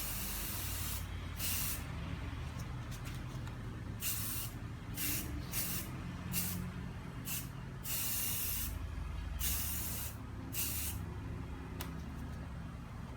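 Primer being sprayed onto a mini refrigerator in a dozen or so short hissing bursts, starting and stopping irregularly, over a steady low hum.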